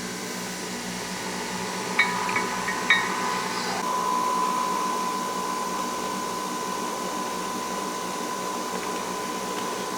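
Nespresso coffee machine running steadily as it brews, with two sharp clicks about two and three seconds in and a steady whine joining about four seconds in.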